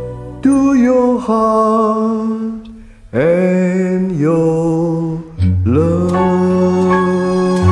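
Music, the closing bars of a slow pop ballad: long held melody notes over a sustained low bass. The notes slide up into pitch about three seconds in and again about five and a half seconds in, after a brief dip in loudness.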